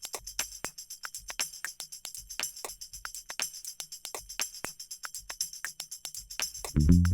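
Background music: a quick, steady rhythm of light tambourine-like percussion hits, with low bass notes coming in near the end.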